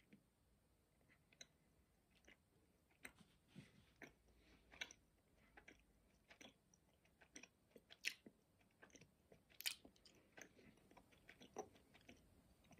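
Faint, scattered mouth clicks and soft wet sounds of a person chewing a jelly bean with the mouth closed.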